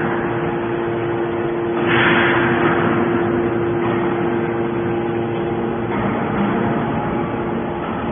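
Hydraulic can baler running: a steady motor and hydraulic-pump hum, with a loud surge of hiss about two seconds in that slowly fades.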